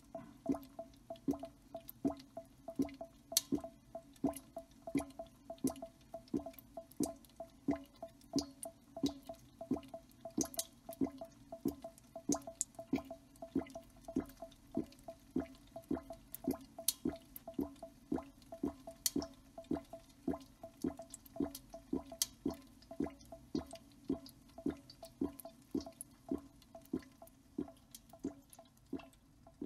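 Steady rhythm of short drip-like plinks, about two a second, each with a brief pitched ring.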